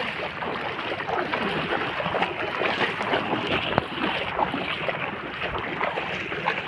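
Water splashing and sloshing with many small irregular ticks, a steady rough wash of noise.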